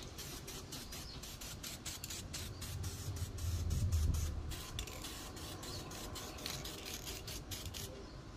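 Aerosol spray paint can hissing as a colour coat is sprayed onto a motorcycle swing arm. A low rumble swells briefly about four seconds in.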